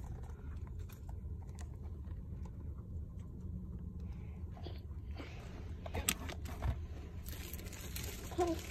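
Plastic packaging being handled in a car: a few sharp clicks and light crinkling, with more rustling near the end, over a steady low hum.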